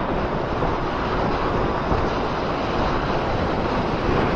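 Steady wind rush over the action camera's microphone on a motorcycle at road speed, with the bike's engine and tyre noise buried underneath.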